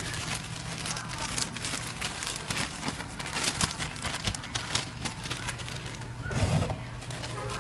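Plastic bag rustling and crinkling with a scatter of small crackles as it is handled, over a faint steady low hum.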